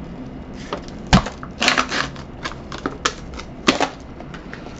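Pringles can being opened: the plastic lid coming off and the foil seal peeling and tearing, heard as a run of sharp crackling clicks, the loudest a little over a second in and a cluster of them just after.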